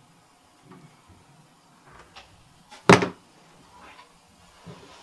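A room door shuts with a single loud thump about three seconds in, with a few faint small knocks of handling and footsteps around it.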